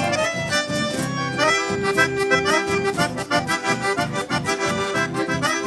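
Live chamamé band playing an instrumental passage: a piano accordion leads with a quick run of notes over guitar accompaniment, keeping an even, lively beat.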